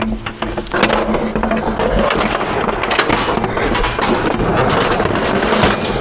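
Scrap being dragged and loaded: a continuous scraping, rattling clatter with knocks, starting about a second in.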